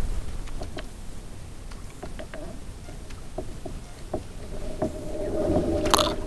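Light knocks and water sounds around a fishing kayak, with a steady hum coming in near the end and one sharp knock just before it ends.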